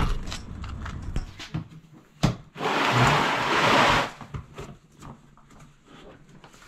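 Cardboard boxes being handled: scattered knocks and sharp clicks, with a rasping noise lasting about a second and a half near the middle.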